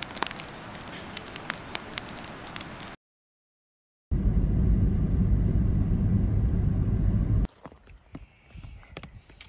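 Wood campfire crackling in a steel fire ring: a steady hiss with frequent sharp pops. It cuts to silence about three seconds in, then a loud low rumble runs for about three seconds and gives way to quieter scattered clicks.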